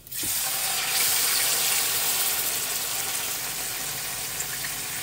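Milk poured into hot ghee in an aluminium karahi, with a loud, steady sizzling hiss that starts suddenly and eases a little towards the end.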